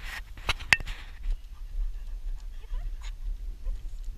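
Dogs panting on a walk, with a few sharp metallic clinks of collar and harness hardware in the first second, over a steady low rumble.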